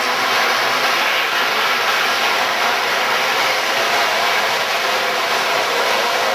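A pack of winged outlaw dirt karts racing, their small engines together making a steady, loud engine drone.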